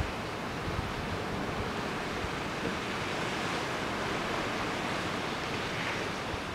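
Open sea: waves washing and wind, heard as a steady rushing noise.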